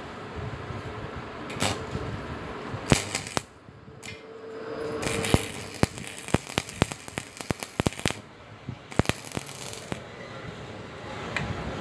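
Stick (arc) welding on a steel roof-truss joint: the arc crackles and sputters, with irregular sharp pops of spatter, from about five seconds in until near the end.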